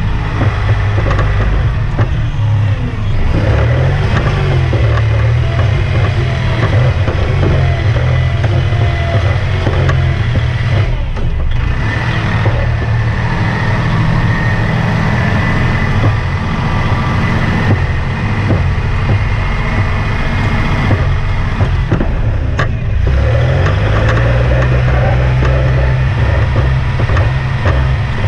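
Kubota compact tractor's diesel engine running steadily as the tractor is driven, with scattered rattles and knocks and a thin high whine. The engine speed shifts briefly a few seconds in and again near the end.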